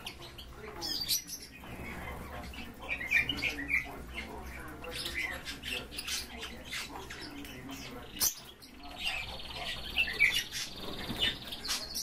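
Pet birds chirping and squawking, over scratching and rustling clicks as a hoopoe moves about in a plastic basin of mealworms. A high trilled call sounds over the last few seconds.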